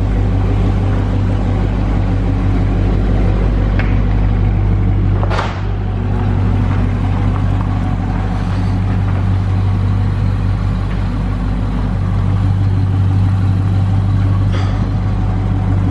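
Car engine idling with a steady low rumble, and a single sharp knock about five seconds in.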